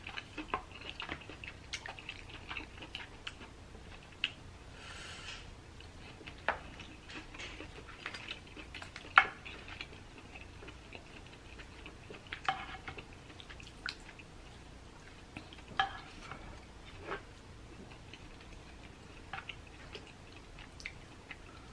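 Scattered sharp clicks and taps of a wooden spoon against dishes as seafood-boil sauce is spooned over rice and crab, the loudest about nine seconds in, with a brief hiss about five seconds in.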